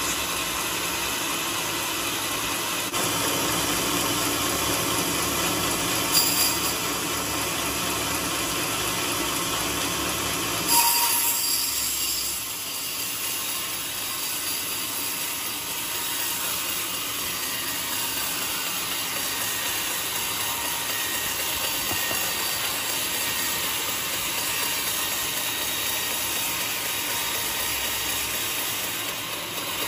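Band sawmill running and cutting a teak log, a steady mechanical noise throughout. Two sharp clanks come about six and eleven seconds in, and after the second the low rumble falls away.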